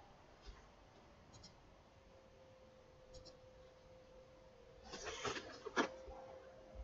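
Computer mouse clicking, a few quiet double clicks of press and release, over a faint steady hum. Just after five seconds comes a brief scratchy rustle and a sharp knock, the loudest sounds.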